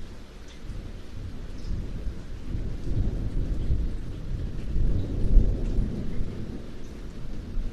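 Rolling thunder over steady rainfall, the deep rumble swelling through the middle and loudest about five seconds in, with light raindrop patter throughout.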